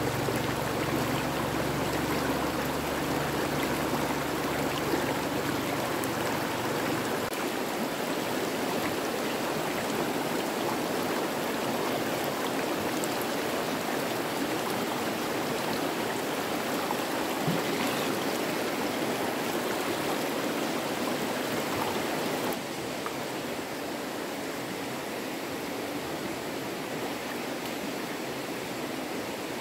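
Stream water running steadily over rocks, a continuous rushing with no break. About 22 seconds in it becomes slightly quieter.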